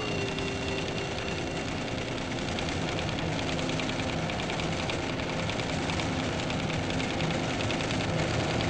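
A steady mechanical din with a fast, even chatter, like machinery running, that becomes plain a few seconds in.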